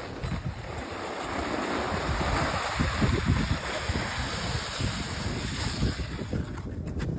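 Plastic saucer sled hissing over snow as it slides down a hill, swelling for the first few seconds and dying away near the end, with gusts of wind buffeting the microphone.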